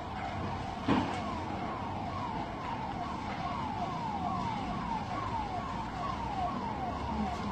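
Emergency vehicle siren wailing, each cycle sweeping down in pitch, about twice a second. A single sharp bang about a second in is the loudest sound.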